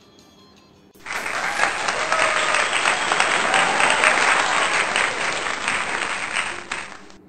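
A crowd applauding, a dense clatter of many hands clapping that starts suddenly about a second in, runs for about six seconds and fades out near the end.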